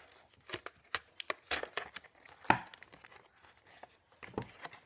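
Crinkling and scraping of a white packaging insert as a boxed RC speed controller and its wires are worked out of it by hand: a run of sharp crackles and rustles, the loudest a crack about two and a half seconds in.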